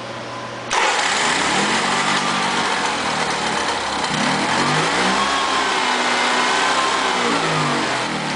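Honda EV6010 generator engine starting up abruptly about a second in and then running, its pitch wavering up and down.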